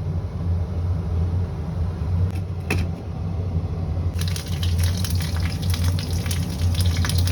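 A steady low hum, like a motor or appliance, runs throughout. About four seconds in, a crackling, bubbling hiss of water joins it.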